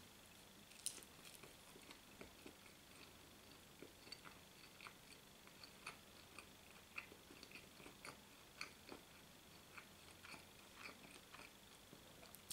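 A person biting and chewing a sandwich. The chewing is faint, with small wet mouth clicks about once or twice a second and a sharper bite sound about a second in.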